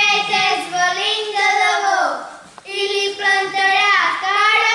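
Young girls singing on stage in two phrases, holding notes, the first phrase sliding down and fading about two seconds in before the next begins.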